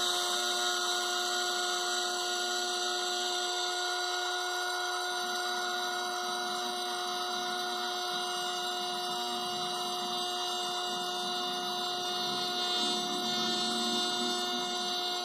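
Small brushed DC motor driving a mini plastic propeller at constant speed: a steady electric whine mixed with an even rushing noise.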